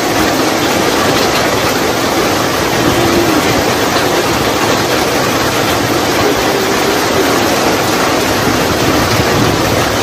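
Steady rain falling on trees and leaf-strewn ground: a loud, even hiss that holds level throughout.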